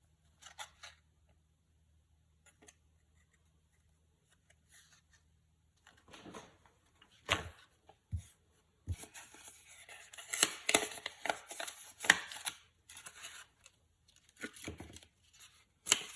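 Screen protector packaging being opened by hand: irregular tearing, crinkling and rustling with sharp crackles. It starts as a few faint clicks and grows busier and louder about halfway through.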